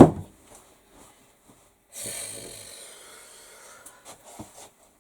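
A sharp knock, then about two seconds in a breathy hiss that fades away over a couple of seconds, and a soft knock near the end.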